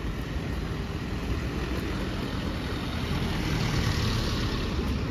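Small pickup truck driving past close by, its engine and tyres growing louder about three seconds in, over a steady low rumble of street traffic.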